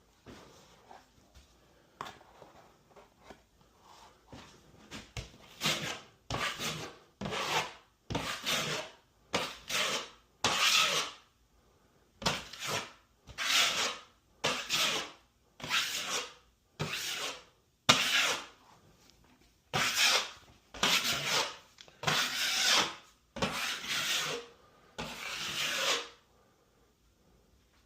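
Razor knife scoring and cutting through drywall in repeated scraping strokes, about one a second. The strokes start faint and grow louder from about five seconds in.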